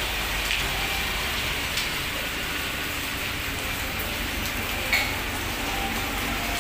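Steady rain falling on the ground and on metal surfaces, with scattered drop taps and one sharper tap about five seconds in, over a low steady rumble.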